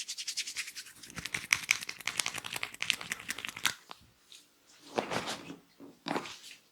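Head massage: hands working rapidly over hair and scalp, a fast run of crisp, crinkly strokes that stops a little before four seconds in, followed by two slower rubs.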